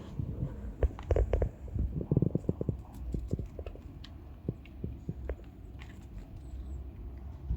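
Cats eating food up close: quick irregular wet clicks and smacks of chewing, busiest in the first couple of seconds and sparser after.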